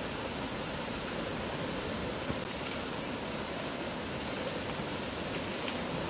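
Fast mountain river rushing over rocks: a steady, even noise of flowing water that does not change.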